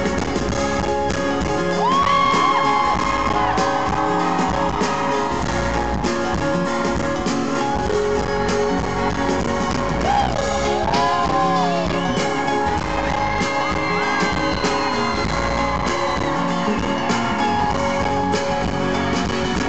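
Live pop band with guitar playing the closing bars of a song in a concert hall, with fans' high screams and whoops rising over the music several times.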